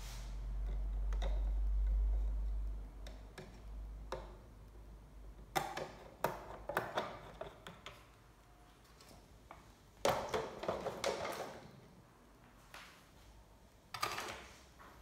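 Screws being backed out of an LCD monitor's plastic back cover with a hand screwdriver: scattered clicks and short spells of ticking and clatter as the screws and casing are handled, with a low rumble in the first few seconds.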